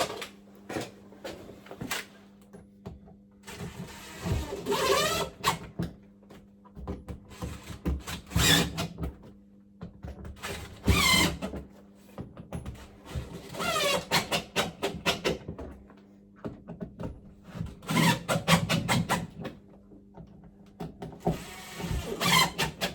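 Cordless drill driver running in short whirring bursts, about six of them, each rising in pitch as it spins up: it is driving screws through fire batt. Clicks and handling knocks fall between the bursts, over a steady low hum.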